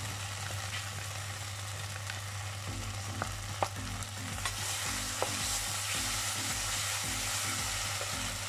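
Ketchup, chopped garlic and paprika sizzling in hot olive oil in a pan. From about three seconds in, a wooden spatula stirs through the sauce, with a few light clicks of the spatula against the pan.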